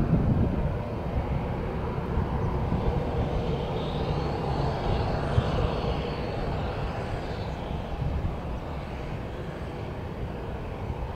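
Boeing 737-800's CFM56 turbofan engines: a jet whine over a steady rumble, swelling about four seconds in and fading again a few seconds later as the airliner passes.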